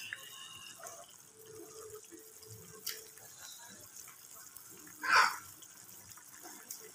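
Pot of instant noodle soup simmering faintly on an induction cooker, a low watery bubbling. About five seconds in there is one short, louder burst of hissing noise.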